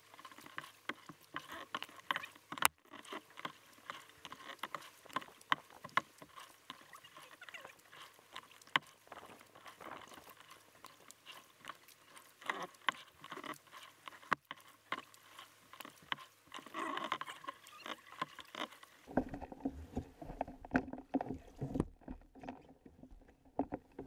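Water lapping and splashing against a kayak's hull at the waterline, a dense irregular patter of small ticks and drips. About 19 seconds in, the sound turns to a low, muffled rumble.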